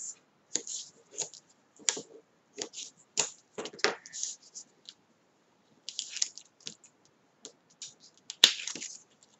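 Double-sided tape being pulled from its roll, torn and pressed onto card stock: a string of short, irregular crackling and scratching noises, with one sharper crack near the end.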